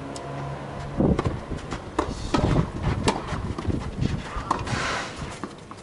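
Tennis ball being bounced and struck on a tennis racket's strings: a series of sharp, irregular knocks starting about a second in.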